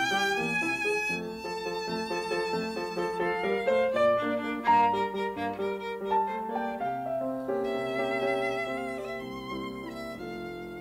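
Instrumental music: a melody played with vibrato over sustained lower notes.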